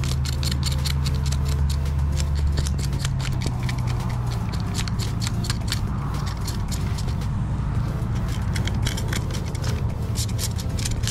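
Background music with a low bass line that changes notes in steps, with rapid, irregular clicking over it.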